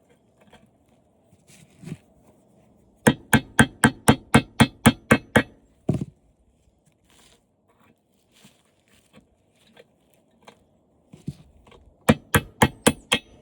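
Hammer blows on a glued-on part of an old television to knock it loose: a quick run of about ten strikes, roughly four a second, then one heavier blow, light knocks, and a second run of about six strikes near the end.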